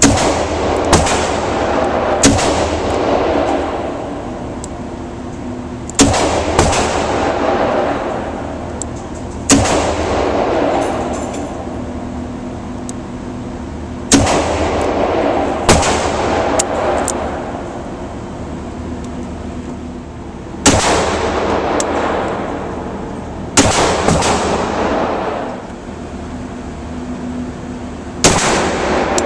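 A Taurus .38 Special revolver firing about a dozen single shots at an uneven, unhurried pace. Each sharp report is followed by a long echo that rings on for a couple of seconds in the enclosed indoor range. The last shot or two, near the end, come from a 9mm semi-automatic pistol.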